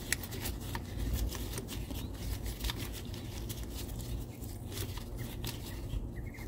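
Gloved hands handling and fitting parts in a generator's engine compartment: scattered small clicks and rubbing, over a low steady hum.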